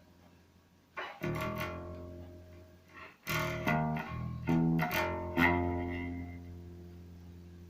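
Precision Bass electric bass being played: after a near-silent first second, a note rings out about a second in, then a run of plucked notes and chords follows from about three seconds in. The last note is left to ring and fade.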